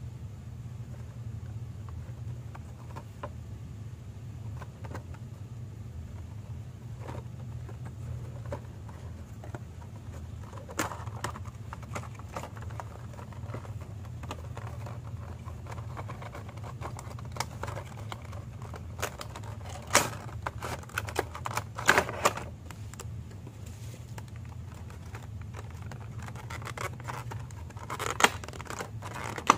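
Hands handling and opening a cardboard Funko Pop box and pulling out its clear plastic insert: scattered taps, scrapes and crackles, sparse at first, then denser from about a third of the way in, with several sharp loud clicks. A steady low hum sits underneath.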